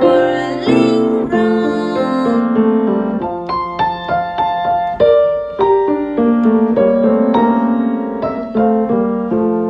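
Grand piano played with both hands: a melody over chords in a steady rhythm, with no singing. Near the end a final chord is struck and left to ring, fading away.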